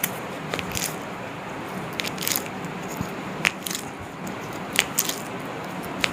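Joints popping and cracking during a chiropractic shoulder manipulation: a scatter of short, sharp cracks, the loudest about three and a half and five seconds in.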